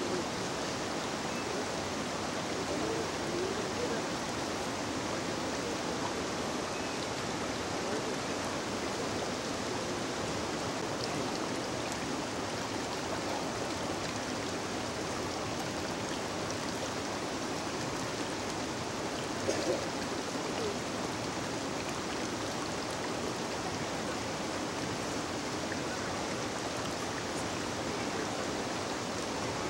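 Steady rushing noise of running water, with one brief, slightly louder sound about two-thirds of the way through.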